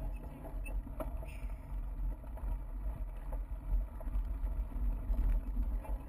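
Steady low rumble of a bicycle rolling over a bumpy grass-and-dirt trail, picked up by a bike-mounted GoPro, with one sharp click about a second in.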